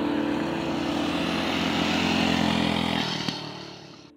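Small motorbike engines running steadily, dropping away about three seconds in and fading out to silence at the end.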